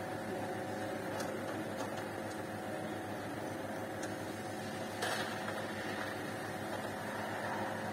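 Steady hum of factory machinery with two constant tones, and a few light clicks from hand work on a metal frame, the clearest about five seconds in.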